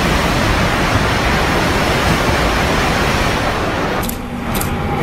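A CRH380-series high-speed train passing at speed: a loud, steady rush of air and wheels. The sound drops and changes abruptly about four seconds in.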